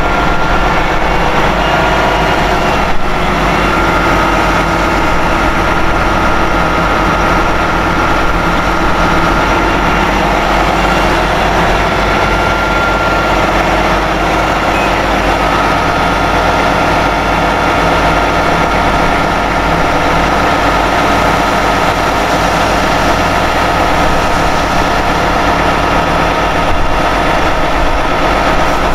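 Heavy tow truck's diesel engine running steadily, with a steady high-pitched whine over it. There is a short knock about three seconds in.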